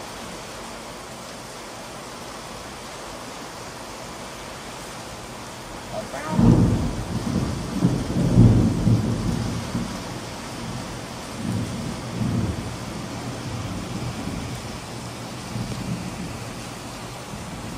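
Thunder over steady rain: about six seconds in, a sudden loud thunderclap breaks into deep rumbling that swells twice, with a weaker rumble a few seconds later, then fades back under the rain.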